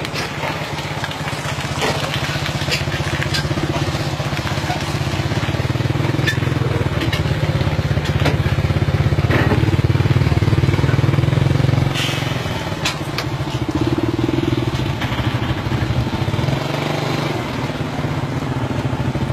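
An engine running steadily, growing louder toward the middle and dropping back suddenly about twelve seconds in, with scattered brief clicks.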